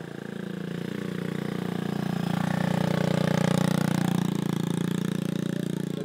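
Small dirt bike engine running at low revs as the bike rolls slowly along. It gets louder toward the middle and eases off a little near the end.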